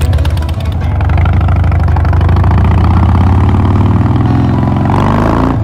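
Harley-Davidson Heritage Softail's V-twin engine running as the motorcycle rides off, its pitch rising near the end as it accelerates.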